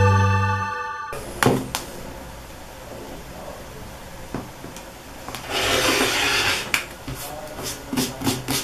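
Background music fades out in the first second. Then a rotary cutter run along an acrylic quilting ruler slices through fabric on a cutting mat, a scratchy swish lasting about a second near the middle, with light knocks and clicks from the ruler and cutter being handled.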